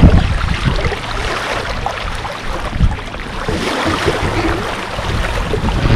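Choppy waves splashing and slapping against a sailing canoe's hull, with irregular low thumps and wind rumbling on the microphone.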